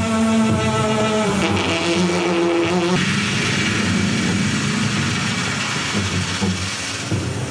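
Vacuum cleaner running with its nozzle held against bare skin. The steady motor hum steps up in pitch about a second and a half in, then turns rougher and noisier about three seconds in.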